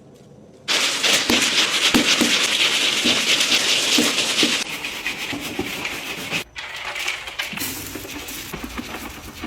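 Food frying in hot oil: a dense crackling sizzle sets in suddenly about a second in. It eases after a few seconds, drops out briefly near the end and then carries on more quietly.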